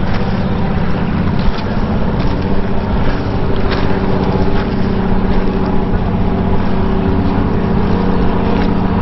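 An engine running steadily at an even speed: a constant low drone.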